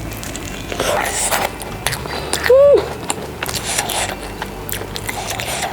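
Crunchy biting and chewing of a deep-fried hollow dough ball (youdenggu) with a crisp, spicy fried shell, many sharp crackles close to the microphone. About two and a half seconds in comes a short hummed sound from the eater, the loudest moment.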